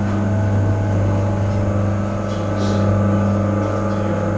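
Steady electric hum from the motors that turn a long row of automated prayer wheels.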